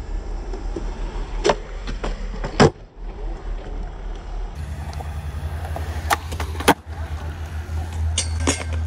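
Skateboard wheels rolling over smooth concrete, a steady low rumble, with several sharp clacks of the board hitting the ground, the loudest about two and a half and six and a half seconds in.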